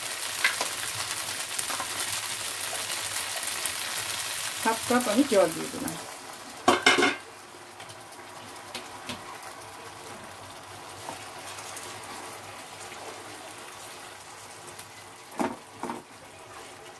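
Spiced cauliflower florets sizzling loudly in hot oil in a frying pan. About seven seconds in, water goes into the pan and the sizzle drops to a quiet simmer. Near the end a spatula knocks against the pan twice while stirring.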